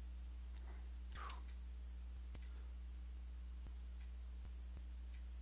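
Faint, irregularly spaced computer mouse clicks over a steady low electrical hum.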